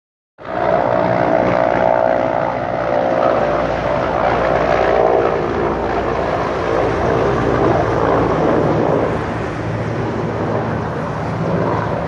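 A low-flying firefighting airplane's engines droning steadily overhead, with a strong humming tone in the drone that fades after about five seconds.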